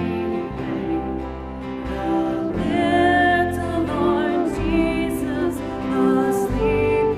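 Slow worship music: sustained notes with a wavering, vibrato-like line over instrumental accompaniment, likely a voice singing.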